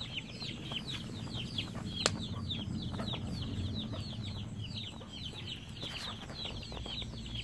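Chicks peeping without a break, many short falling cheeps each second, with one sharp click about two seconds in.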